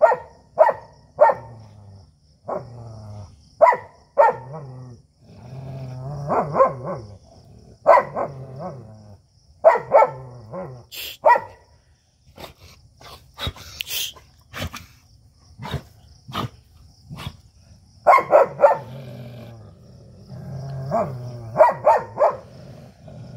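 Dogs barking aggressively in short clustered bursts, with low growling between the barks: a standoff between rival dogs building toward a fight.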